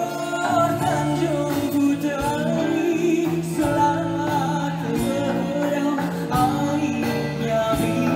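A male singer sings a Malay pop-traditional song live, backed by a band with drum kit, accordion and keyboards.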